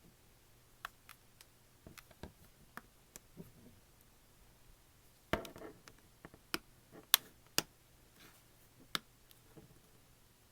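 Scattered sharp plastic clicks and snaps as a tablet's back cover is pried loose, its clips popping free, with a brief scrape a little past halfway and the loudest snaps soon after.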